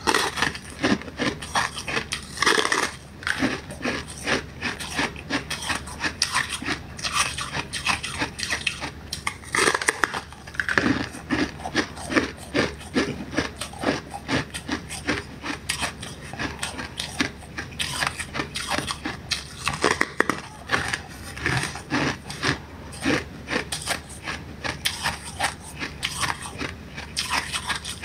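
A person biting and chewing a block of frozen ice, a dense, irregular run of crisp crunches and cracks.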